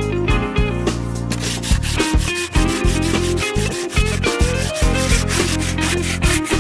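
Sandpaper rubbing by hand over a carved wooden sculpture in repeated strokes, heard over guitar background music.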